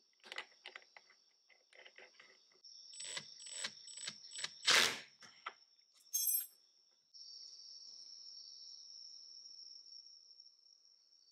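Small clicks and rustles of a hand fitting a plastic mud-flap mounting clip, with a louder scrape about five seconds in and a quick rattle of clicks just after. Crickets chirr steadily throughout and carry on alone after about seven seconds.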